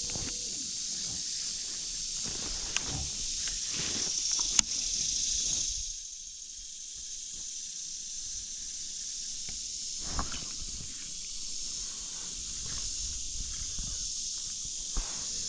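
Steady high-pitched insect drone, a late-summer chorus such as cicadas, that eases off a little about six seconds in, with scattered light clicks and knocks over it, one sharp click about four and a half seconds in.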